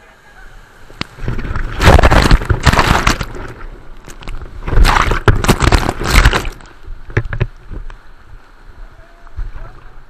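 Whitewater surging against and over an inflatable raft in a rapid: two loud waves of splashing, the first about two seconds in and the second about five seconds in, followed by a few short, lighter splashes.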